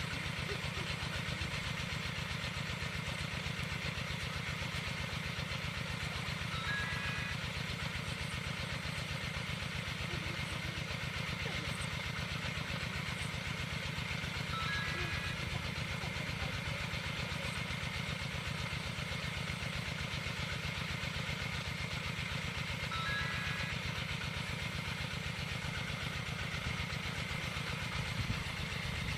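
A small engine running steadily at an even speed, with a short high stepped chirp repeating about every eight seconds.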